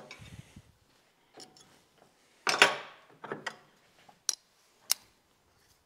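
Metal hand tools and parts handled on a workbench: a clank with a short ring about two and a half seconds in, then a few sharp metallic clicks as a wrench is picked out.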